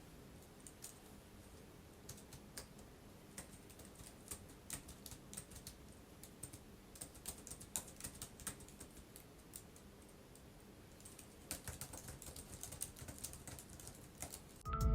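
Typing on a computer keyboard: a run of quiet keystroke clicks, with a short pause about two-thirds of the way through.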